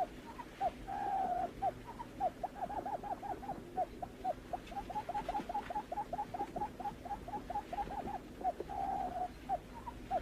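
Barred buttonquail calling: a fast run of short, hooked, cooing notes, about four or five a second, with a longer purring note about a second in and another near the end.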